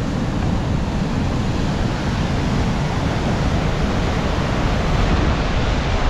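Steady roar of Gullfoss's upper falls, the Hvítá River cascading over basalt steps close by, mixed with strong wind buffeting the microphone.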